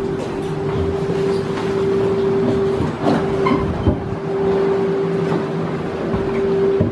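Metro train running, with a steady whine held at one pitch over the rumble of the cars and scattered clacks and knocks.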